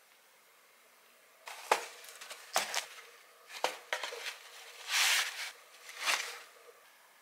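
Cardboard box being opened and handled: a string of sharp knocks and crinkling rustles, with a longer rustle about five seconds in.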